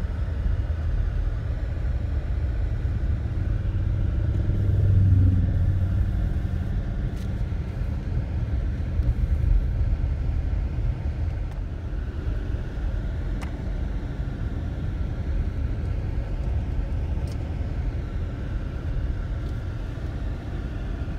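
Steady low rumble of a car's engine and tyres on the road, heard from inside the moving car's cabin. It swells briefly about five seconds in.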